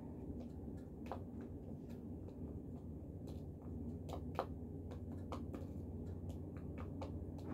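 Scattered light clicks and taps of a plastic food container being handled, over a steady low hum.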